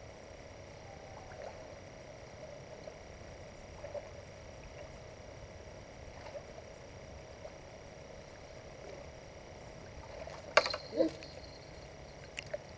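Faint steady hum of night-time background, with a few soft ticks; near the end one sharp click stands out, followed by a brief low sound and another small click.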